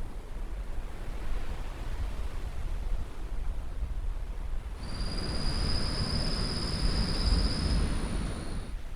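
Beach surf washing in steadily under a hiss of wind. About five seconds in, a fuller wash and a high steady whine come in together, then cut off sharply four seconds later.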